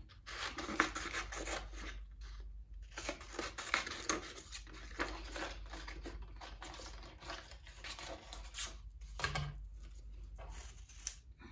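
Scissors snipping through a sheet of paper in a run of irregular cuts, with the paper rustling as it is turned and handled. There is a short pause about two seconds in.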